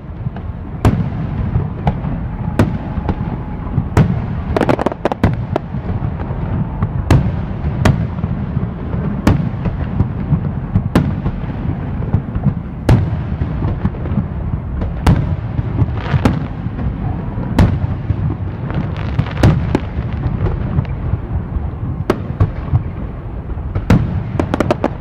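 Fireworks display: a dense, continuous low rumble of bursts, with sharp cracks and bangs standing out irregularly about once a second.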